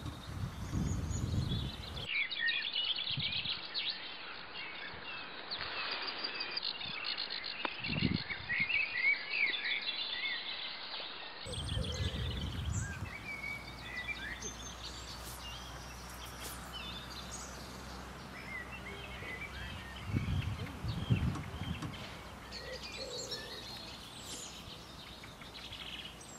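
Songbirds chirping and singing, several short calls and warbles overlapping, with a few low rumbles now and then.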